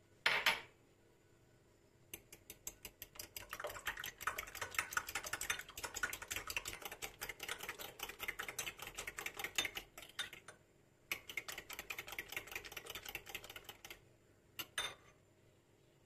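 Fork whisking raw eggs in a ceramic bowl: rapid, even clinking of the fork against the bowl in two spells with a short pause between, plus a single clink near the start and two taps near the end.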